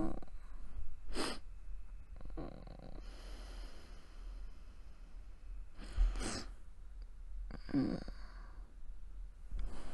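A woman breathing close to the microphone, with about four short, soft mouth or breath sounds spread through and a faint drawn-out breath in the middle.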